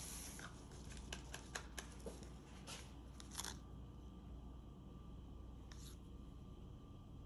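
Faint clicks and rustles of gloved hands handling a cup of acrylic paint and a stirring stick as paint is scooped out, most of them in the first few seconds, over a low steady hum.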